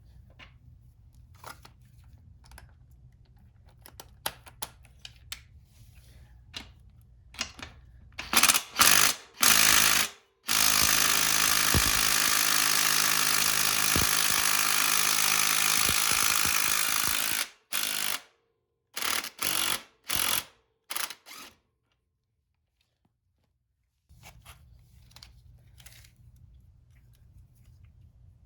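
Handheld power tool run in several short bursts, then held on for one steady run of about seven seconds, then a few more short bursts. Light clicks of tool handling come before it.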